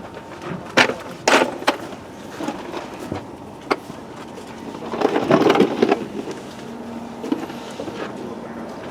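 A few sharp knocks and clatters from work around a backhoe loader, three in the first two seconds and one near four seconds, then a longer rattling clatter about five seconds in, over a faint steady machine hum.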